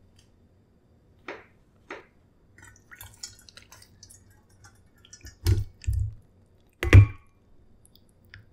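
Wet porridge and soup with seaweed and meatballs tipped from a bowl into a stainless steel dog bowl: soft dribbling and spattering, then a few heavy wet plops, the loudest about seven seconds in.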